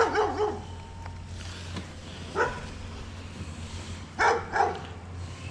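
A dog barking a few short times, two barks in quick succession about four seconds in, over a low steady hum.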